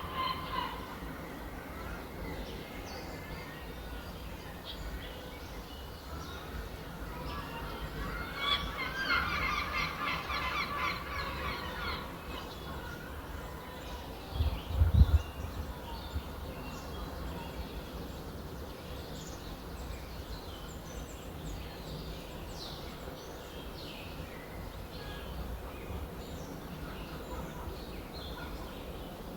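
Wild birds calling and chirping over a steady low hiss of outdoor background noise, with a burst of fast repeated calls about a third of the way in. A brief low thump about halfway through is the loudest moment.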